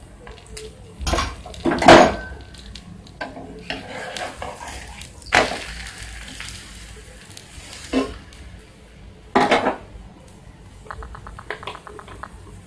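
Metal spatula knocking and scraping on a flat tawa griddle as a puran poli fries, with a soft sizzle of oil. About five sharp knocks, the loudest about two seconds in, and a quick run of light ticks near the end.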